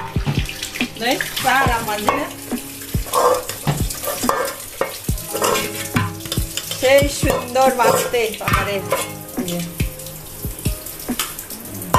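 A song with a wavering sung voice plays in the background, over wet squelching and clicking as fibrous palmyra palm fruit is squeezed by hand over an aluminium bowl.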